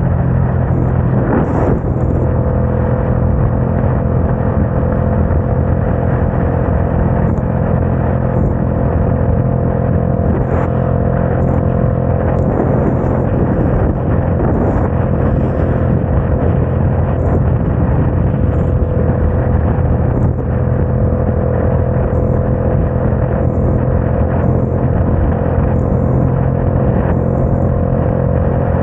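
Motorcycle engine running at a steady highway cruise in fifth gear, about 64 mph, under a constant rush of wind and tyre noise on the wet road.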